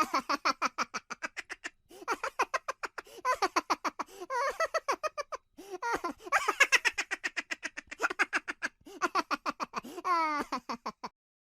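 A child laughing and giggling in quick, rapid pulses, in several stretches with short breaks, ending in a high squeal near the end.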